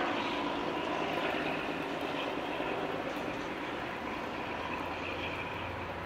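Diesel engine of an XPT power car running under power as the train pulls away, a steady low engine drone that slowly fades as it recedes.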